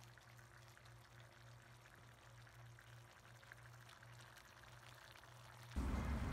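A faint steady low hum with a few soft ticks. Near the end a sudden, much louder pouring sound starts, something being poured into a plastic basin of coins.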